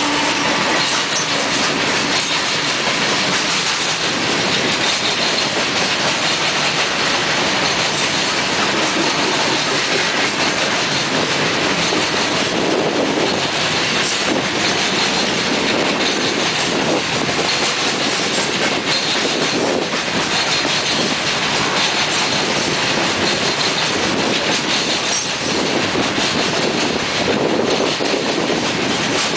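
Coal hopper cars of a long freight train rolling past: a steady, loud rush of steel wheels on rail with a rhythmic clickety-clack of wheels over rail joints.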